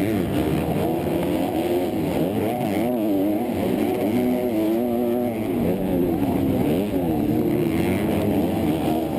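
Motocross race bike's engine at full race pace, heard on board, its pitch rising and falling every second or so as the throttle is worked and gears change.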